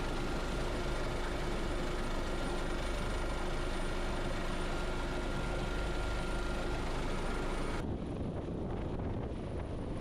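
Rescue helicopter heard steadily at hover, engine and rotor noise with a faint steady whine. About eight seconds in the sound abruptly turns duller and continues.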